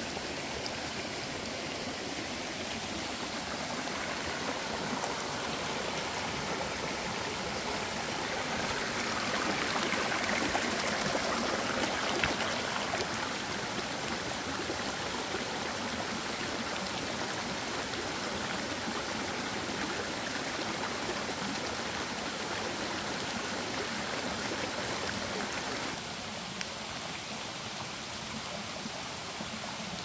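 A forest stream running steadily, a continuous rush of flowing water that drops a little in level about four seconds before the end.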